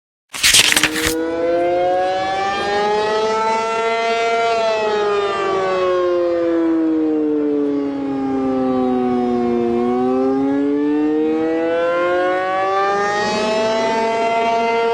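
Civil defence siren wailing: several tones sounding together rise slowly, fall over about five seconds and rise again. It starts with a short loud rush of noise about half a second in.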